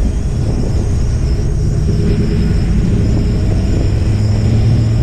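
2017 Chevy Silverado pickup driving on pavement, heard from a camera mounted beside the rear wheel: a steady, loud low rumble of tyre and road noise.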